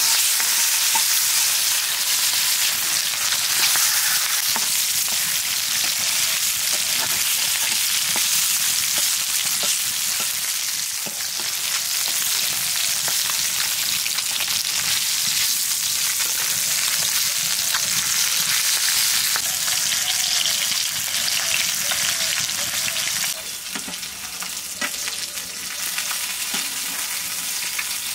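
Marinated chitol (clown knifefish) belly pieces frying in hot oil: a loud, steady sizzling hiss that drops somewhat in level about 23 seconds in.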